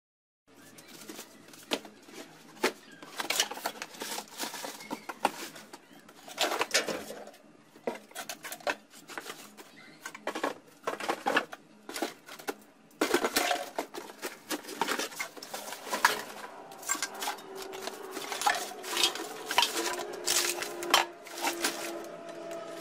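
Items being rummaged through in cardboard boxes: irregular clatter and knocks of hard plastic, cardboard and bottles being picked up and set down, with plastic-bag rustling between them.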